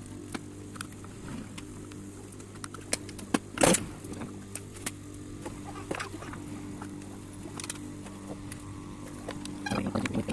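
Scattered light clicks and knocks from tricycle parts being handled and fitted during assembly, with one louder knock about three and a half seconds in and a few more clicks near the end, over a steady low hum.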